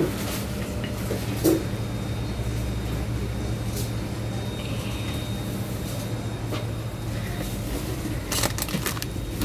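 Steady low hum of shop refrigeration, with a single sharp knock about a second and a half in. Near the end, plastic bags of flour rustle and crinkle as a hand sorts through a box of them.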